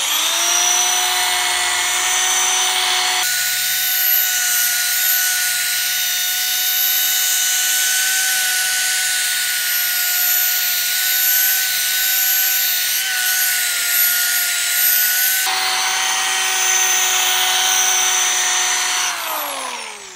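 Power drill spinning a foam polishing pad with rubbing compound against a plastic headlight lens, the final polishing step of a headlight restoration. The motor's whine rises as it spins up at the start, holds steady, and falls away as it winds down near the end.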